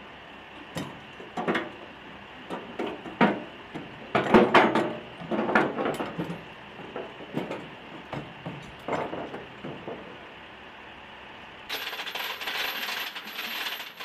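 Metal rigging chain and hooks clinking and clanking in irregular bursts as they are handled, turning into a denser, continuous chain rattle in the last couple of seconds.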